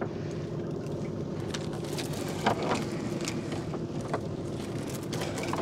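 Boat engine running steadily, with scattered light clicks and knocks over it.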